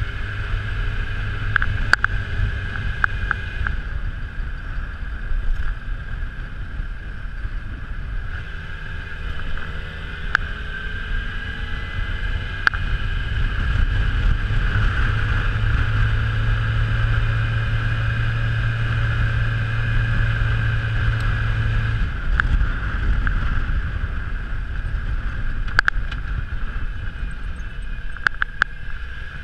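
Yamaha FZ6R 600cc inline-four motorcycle engine running steadily on the move, heard with wind and road noise. The engine note grows louder about halfway through and falls off about three-quarters of the way through as the throttle eases, with a few sharp clicks near the end.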